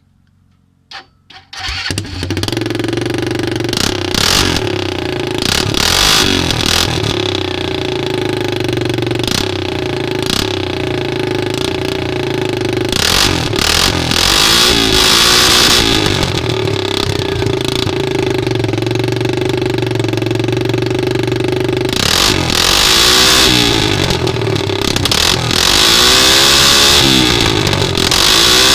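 250 cc ATV engine started: two brief bursts, then it catches under two seconds in and runs. It is revved up and down several times, most often in the last few seconds.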